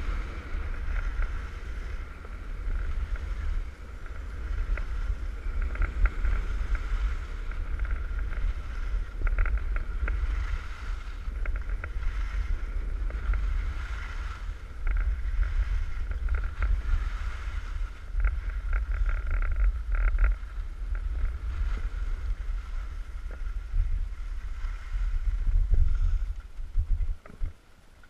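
Wind buffeting a GoPro's microphone during a fast ski run, with the skis hissing and scraping over packed snow. The noise drops away sharply near the end as the skier comes to a stop.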